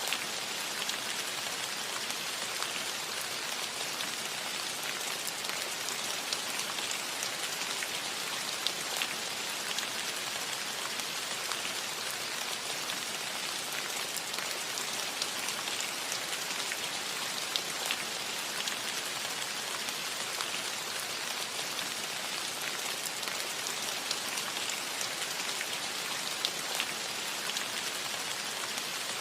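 Steady rain on a metal roof: an even hiss of rainfall with many individual drops ticking on the metal.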